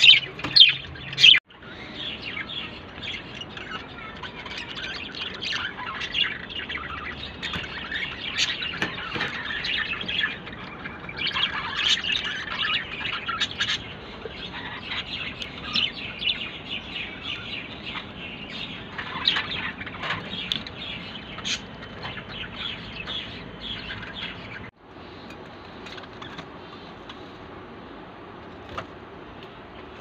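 Several caged budgerigars chattering, a rapid, continuous stream of short high chirps. It cuts out for a moment about a second and a half in and again near the end.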